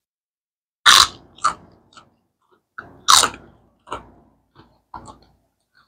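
Close-up crunching of a crisp cracker being bitten and chewed: two loud bites about two seconds apart, each followed by several smaller crunches as it is chewed.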